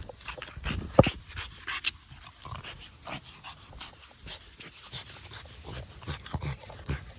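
A French bulldog making scattered short vocal noises and scuffling sounds, the sharpest about a second in.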